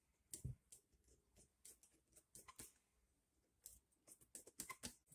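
Faint, scattered clicks and light metal taps as small bolts are handled and threaded by hand into a vintage outboard engine block. There is a slightly heavier knock about half a second in and a quick run of clicks near the end.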